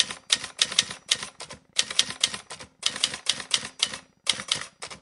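Manual typewriter typing: type bars striking the paper in quick runs of about four or five keystrokes a second, with short pauses between words.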